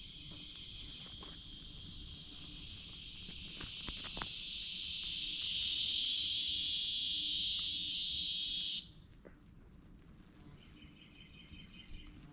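An insect's high buzzing song that grows steadily louder and then cuts off suddenly about nine seconds in. A fainter, pulsing insect call follows near the end.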